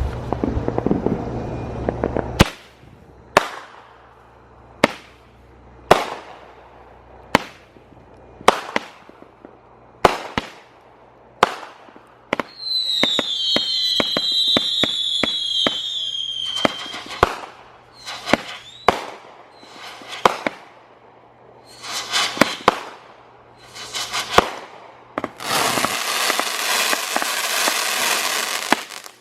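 A fanned consumer firework cake (Mobile Menace) firing shot after shot, a sharp bang every second or so. About twelve seconds in comes a volley of falling whistles mixed with quick pops. Near the end it turns to a dense, steady crackle.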